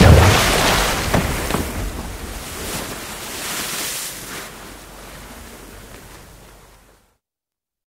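A loud water splash: a sudden plunge into water, followed by churning and sloshing water that fades away over several seconds, then cuts off about seven seconds in.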